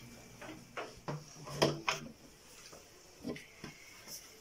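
A few scattered knocks and clinks as a stainless steel mixing bowl is lifted off a water-bath pot and handled, the loudest about a second and a half in.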